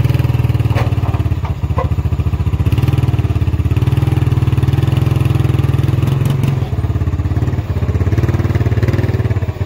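Four-wheeler (ATV) engine running steadily with a fast low pulse, easing off briefly a few times, as it works pushing a pickup truck backward.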